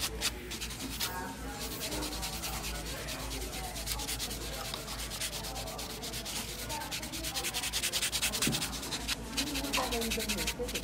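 Handheld nail sanding block rubbed rapidly back and forth over long acrylic nails. It makes a steady, fast rasping scrape of many short strokes, shaping and smoothing the acrylic.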